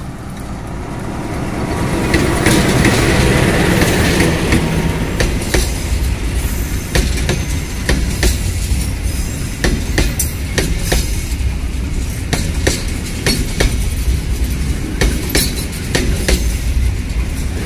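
A KAI diesel locomotive passes close by, its engine loudest a few seconds in, followed by a long train of loaded container wagons rolling past with a steady, repeated clickety-clack of wheels over the rail joints.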